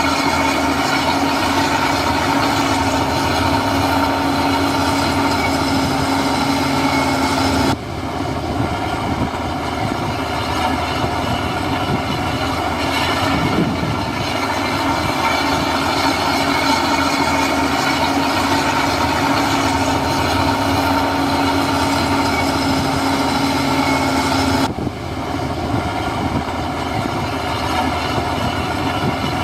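Heavy earthmoving machinery running steadily: a diesel engine's drone with metallic rattling, broken by two abrupt jumps in the sound, about 8 seconds in and near the end.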